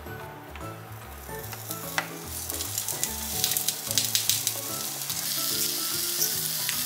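Zucchini slices frying in olive oil in a small rectangular pan: a sharp click about two seconds in, then sizzling that sets in and builds into a steady crackling sizzle as more slices go in.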